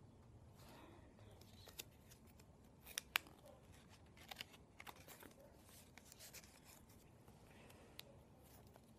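Faint crinkling and clicking of origami paper being folded and creased by hand, in scattered short bursts, the sharpest a pair of snaps about three seconds in.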